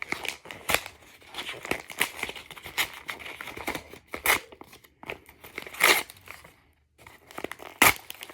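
Paper crinkling and tearing as a handmade paper blind bag is pulled open: irregular crackles with a few louder rips.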